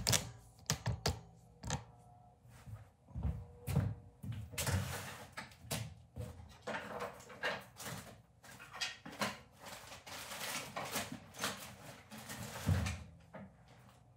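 Workshop handling sounds of wood being moved about at a table saw: a quick run of knocks and clunks, then repeated stretches of scraping and rustling as boards and sheets are slid and handled.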